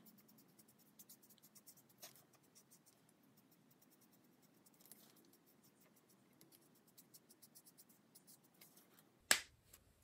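Faint, light scratching strokes of a Stampin' Blends alcohol marker colouring on cardstock, with a single sharp click near the end.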